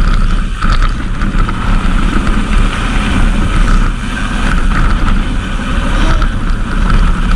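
A kids' mountain bike rolling fast over dirt trail, with constant wind rumble on the microphone and scattered clicks and rattles from the bike over bumps.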